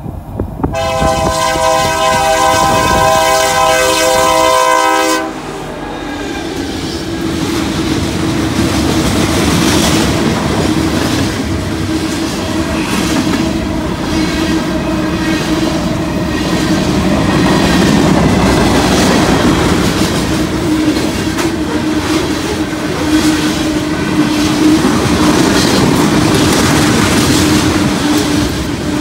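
Union Pacific SD70M locomotives blowing one long horn blast at the grade crossing, cutting off sharply about five seconds in. The locomotives then pass and the freight cars roll by with continuous loud wheel noise and a regular clickety-clack over the rail joints.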